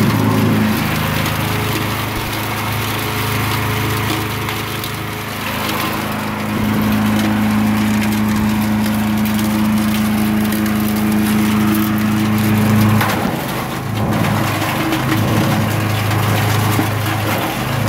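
Ztrust petrol wood chipper-shredder with a 420cc, 13 hp engine running steadily while branches are fed in and shredded, the wood crackling and splintering through the cutter. The engine note dips briefly about two-thirds of the way through.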